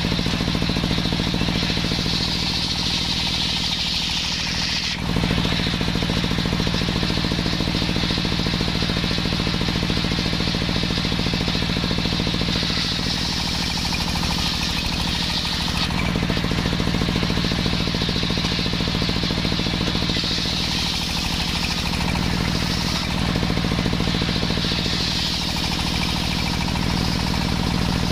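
Engine-driven homemade circular saw rig running steadily while it saws waru wood, with a high cutting whine that strengthens and fades in stretches as the blade works through the timber.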